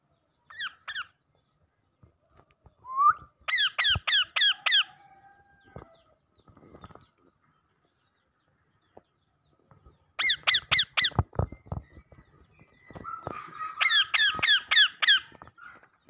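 Green ringneck (rose-ringed) parakeets calling: three bursts of rapid, shrill repeated notes, five or six notes to a burst, a few seconds apart, with a few soft clicks in between.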